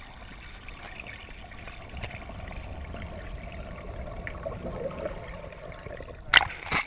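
Muffled underwater water noise and bubbling, picked up by a camera underwater as divers rise through their own bubbles. Near the end come two sharp, loud splashes as the camera breaks the surface.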